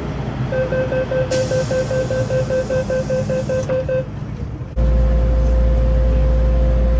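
MTR train door-closing warning: a rapid beeping tone, about four beeps a second, with a hiss partway through. After an abrupt cut, a steady continuous warning tone sounds over a loud low rumble.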